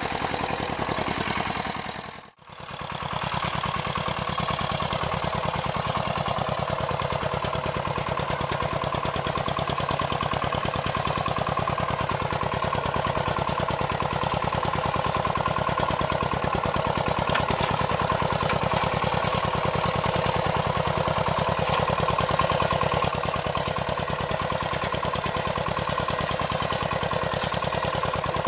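Two-wheel walking tractor's engine running steadily under load while ploughing, with a fast, even firing beat. The sound briefly drops out about two seconds in, then carries on unchanged.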